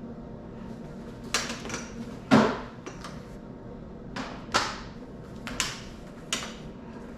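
Stiff old insulated wires from a welder's power cord being twisted apart and unwound by hand, scraping and knocking in a string of short sudden sounds, the loudest about two and a half seconds in.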